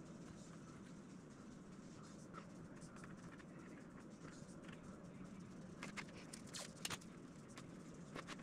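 Faint scraping of a bamboo skewer spreading micro-balloon-thickened resin filler into balsa hinge recesses, over quiet room tone with a low steady hum. A few short sharp crackles come about six to seven seconds in, as blue masking tape is handled.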